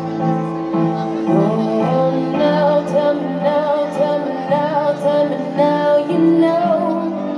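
A song playing: a female voice sings a wavering melody over steady instrumental backing.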